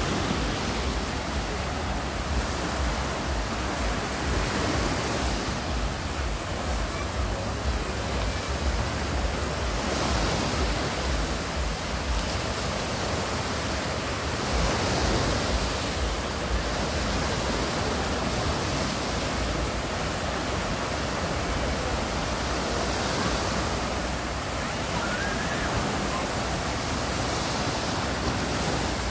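Black Sea surf breaking and washing up the shore: a steady rushing noise of waves that swells every few seconds as each breaker comes in.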